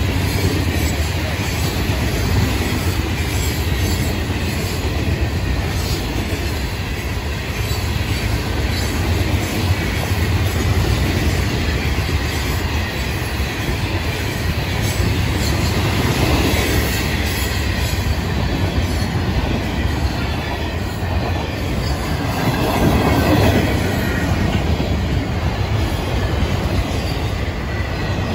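Florida East Coast freight train's hopper cars and autoracks rolling past at close range: a steady rumble and rattle of steel wheels on the rails, swelling briefly about 23 seconds in.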